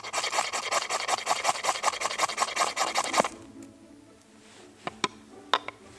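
Knife spine scraped rapidly and hard down a ferrocerium rod, about seven strokes a second for some three seconds, striking sparks to light birch-bark tinder. A few sharp clicks follow near the end.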